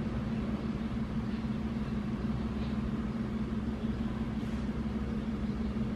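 Steady low machine hum, unchanging throughout.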